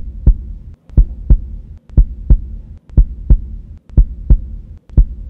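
Heartbeat sound effect: a deep double thump, lub-dub, repeating steadily about once a second.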